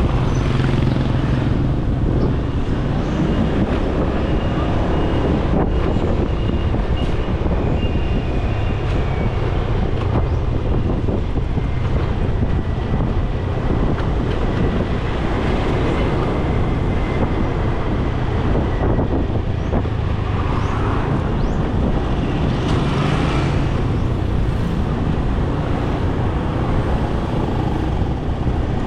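Motorcycle taxi engine running steadily under way, with road and wind noise heard from on board the moving bike amid traffic.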